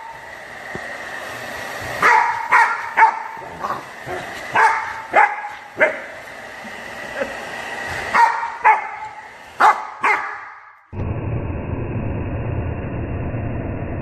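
Rottweiler puppy barking sharply about ten times, in quick runs, at a running hairdryer, with the hairdryer's steady high whine underneath. About three seconds before the end the sound switches abruptly to a steady low rushing noise.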